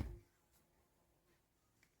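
Near silence: room tone, after the tail of a louder sound dies away at the very start.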